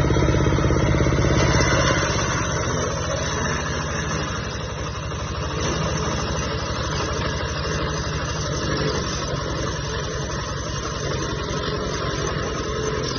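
Wood crusher (sawdust shredder machine) running: a steady, dense mechanical drone with a fast low pulsing, slightly louder for the first couple of seconds, then even.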